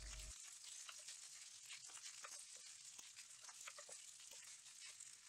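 Faint sizzle of rice stir-frying in an oiled nonstick pan, with scattered soft ticks and scrapes from a wooden spatula turning it.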